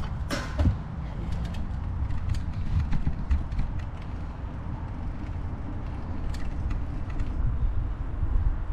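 Bicycle ridden at speed, its frame and fittings creaking and clicking over a steady low rumble of wind on the camera's microphone, with one short falling squeak in the first second.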